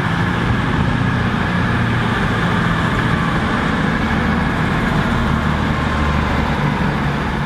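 Steady low drone of diesel train engines. A CrossCountry Voyager diesel multiple unit runs along the near track while a Class 67 diesel locomotive approaches.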